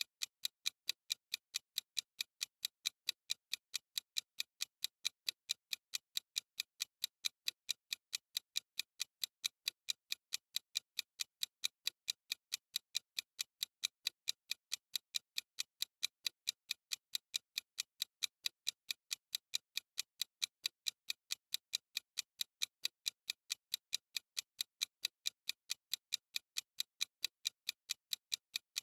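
Clock ticking sound effect for a countdown timer: a steady, even run of sharp, high-pitched ticks that never changes pace or level.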